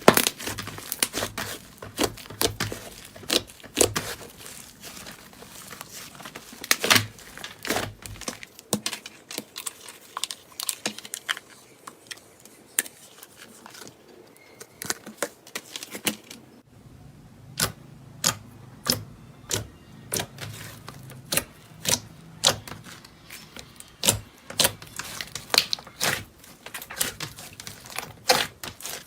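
Slime being squeezed and handled, making many sharp, irregular crackling clicks and pops.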